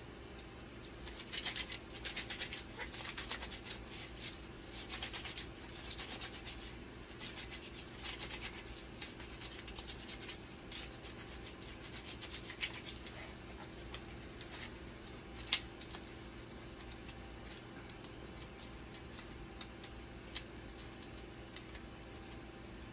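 Nitrile-gloved hands rubbing and scraping in quick scratchy bursts during the first half, then scattered small clicks, with one sharper click about two-thirds of the way through. A steady low hum runs underneath.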